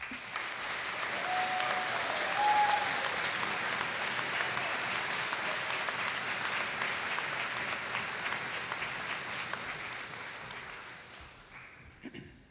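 Large audience applauding, breaking out at once and dying away over the last couple of seconds.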